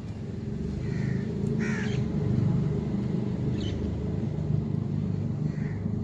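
Common mynas giving a few short, harsh calls, the strongest about two seconds in, over a steady low rumble that is the loudest sound throughout.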